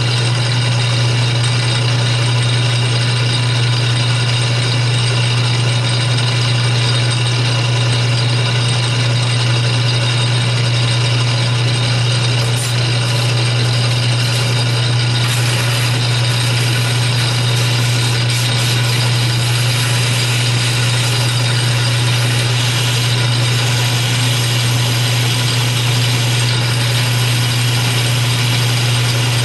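Atlas 6 metal lathe running: a steady, loud low motor hum under a layer of belt and gear rattle, with a brighter hiss coming in about halfway.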